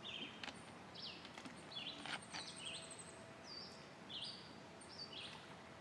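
Small songbirds chirping in the woods: many short, high calls repeating throughout, with a quick high trill about two seconds in, over a faint outdoor hiss.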